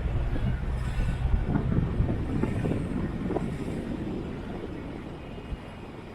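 Street traffic: a motor vehicle's low engine rumble, loud at first and fading away over the following seconds.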